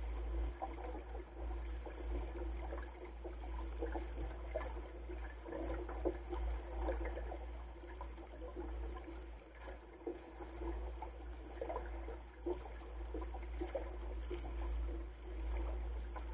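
Water rushing and splashing along the hull of a Goat Island Skiff sailing dinghy under way, in small irregular slaps and gurgles over a steady low rumble.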